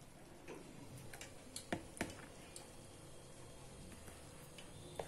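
Cooked rice being pushed by hand off a plate into a kadai: faint scattered clicks and light taps, with a couple of sharper ones about two seconds in and one near the end.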